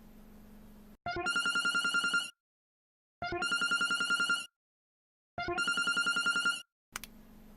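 Telephone ringing: three rapid trilling rings, each a little over a second long, with about a second of silence between them. A faint low hum comes before the first ring and after the last.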